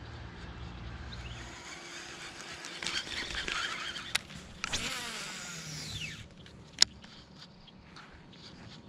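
Baitcasting reel during a cast: the spool whirs as line pays out, falling in pitch as it slows. A sharp click comes near the end as the reel is engaged, followed by faint ticking as the line is reeled in.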